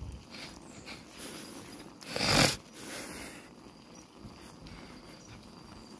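Bicycle rolling over a wet, broken road surface: low tyre rumble and small rattles and clicks, with one loud rushing burst about two seconds in.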